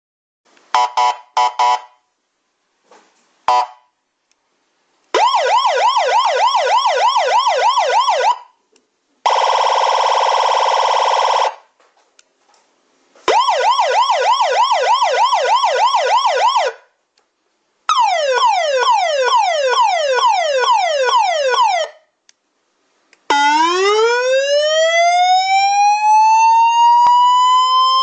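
Electronic emergency-vehicle siren run through a series of tones with short gaps between them: a few quick chirps, a fast repeating yelp, a steady buzzing horn blast, the yelp again, a fast falling sweep, then a wail winding slowly up in pitch near the end.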